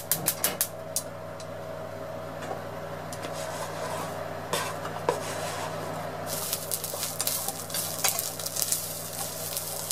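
Strips of aburaage dropped into a hot non-stick frying pan and stir-fried with chopsticks. After a few light clicks at the start and a clack about four and a half seconds in, the tofu starts sizzling about six seconds in, with chopsticks clicking against the pan.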